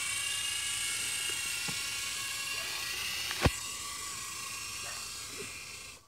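Toy remote-control helicopter's small electric motors and rotors whining steadily in flight, slowly getting fainter, with one sharp click about three and a half seconds in; the whine stops abruptly near the end.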